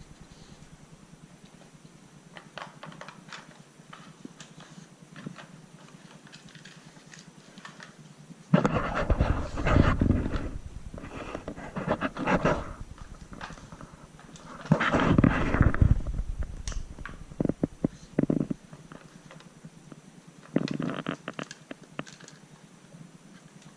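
Australian Shepherd panting and sniffing while working a plastic Dog Tornado puzzle toy, with plastic clicks and clattering. The clatter comes in three louder spells: about nine seconds in, around fifteen seconds, and near the end.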